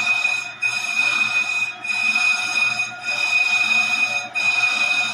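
Brake drum lathe's cutting bit squealing against a turning brake drum as it feeds in to resurface it, a steady high whine that breaks off briefly about every second and a quarter.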